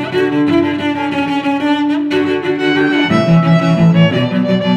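Background music of bowed strings, violin and cello playing slow, held notes.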